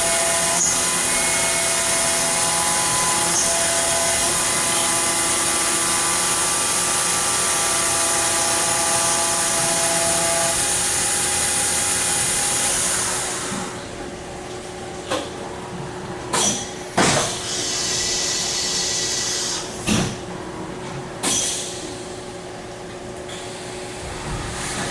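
Fadal VMC4020 vertical machining center running, a steady hiss with several high whining tones, which cuts out about halfway through. Then a handful of sharp mechanical clunks and a short hiss.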